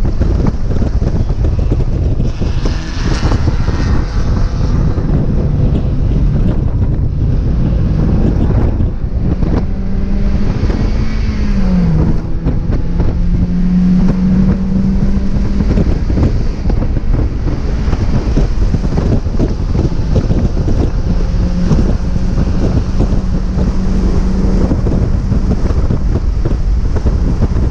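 Heavy wind buffeting on an onboard microphone in a 1999 Mazda Miata at speed, largely drowning out the car's four-cylinder engine. The engine note shows through faintly, climbing and then dropping sharply about twelve seconds in.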